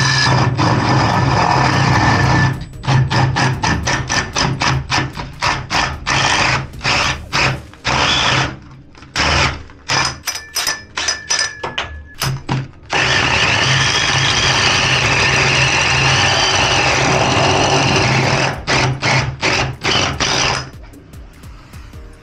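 Electric drill boring into a wall. It runs steadily for a couple of seconds, then in many short trigger bursts, steadily again for about five seconds, and in short bursts once more before it stops.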